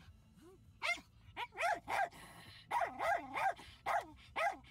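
A dog barking inside a car: about ten short, high yappy barks in quick runs, each rising and falling in pitch.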